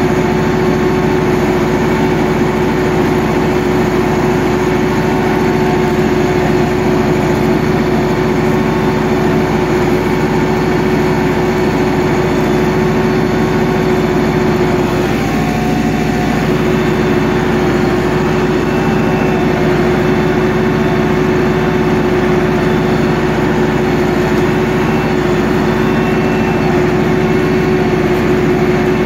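Massey Ferguson 385 tractor's four-cylinder diesel engine running steadily under load, pulling a three-tine chisel plough through the soil. A loud, even drone.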